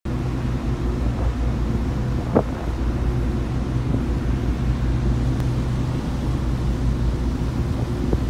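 The Polonia ferry's diesel engines drone steadily under way, mixed with wind rumbling on the microphone. A single short knock sounds about two and a half seconds in.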